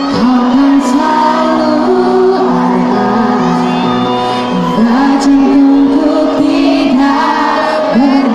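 A live pop band with electric guitar plays while a male and a female singer sing a duet into microphones.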